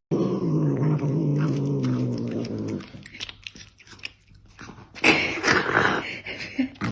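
A pet animal's sounds: a drawn-out, wavering vocal sound for about three seconds, then soft clicking, chewing-like noises, then louder rough, noisy sounds near the end.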